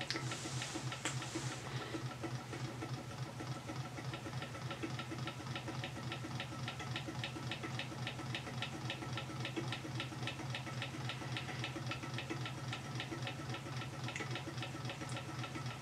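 Brass beam-type Stirling hot-air engine running slowly on a small flame, its mechanism ticking evenly about four times a second over a low steady hum.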